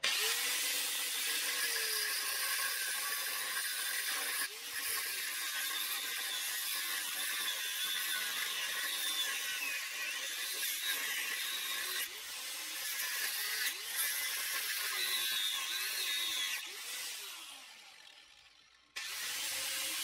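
Parkside PWS 125 E4 angle grinder with a cut-off disc cutting through rusty steel: a loud, harsh hiss of the disc on metal, with the motor's pitch dipping and recovering as the disc bites. Near the end the sound fades over about two seconds, then returns suddenly at full strength.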